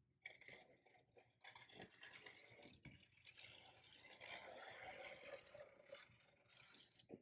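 Faint scraping of a hand tool worked along the edge of a vinyl window decal on glass, with a couple of light ticks.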